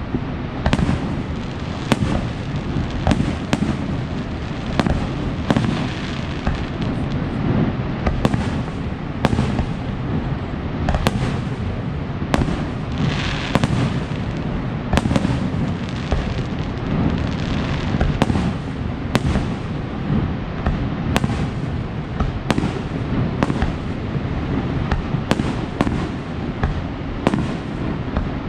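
Fireworks bursting in a continuous run of sharp bangs, one or two a second, over a steady low rumble, with a brief hissing crackle about halfway through.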